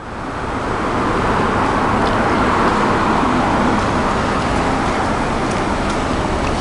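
Weather radio receiver hissing with static, a steady rushing noise that swells up over the first second, with a few faint clicks.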